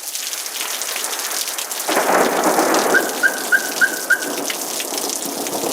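Heavy rain pouring steadily; about two seconds in, a thunder rumble swells in beneath it. During the rumble, five short high beeps sound in quick, even succession.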